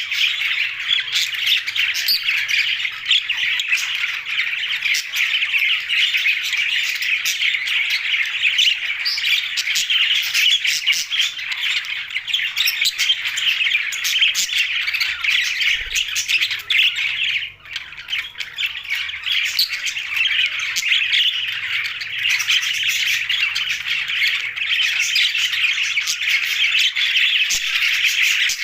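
A flock of budgerigars, English and blue budgies, chattering and squawking nonstop in dense overlapping chirps, with a momentary lull about two-thirds of the way through.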